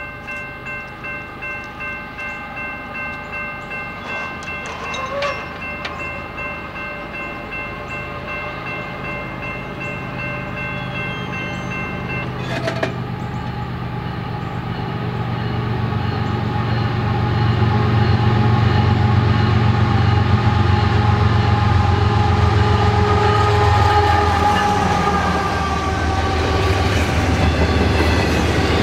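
Freight locomotive horn, on a GE ES44AC, holding one long multi-note chord for about twelve seconds, then cutting off abruptly. The diesel engine's rumble then grows louder as the locomotive passes, followed by double-stack intermodal cars rolling by.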